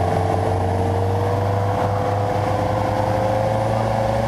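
Mercedes-Benz Unimog 404's petrol straight-six engine running under load as the truck crawls through deep mud, its note rising slowly and steadily.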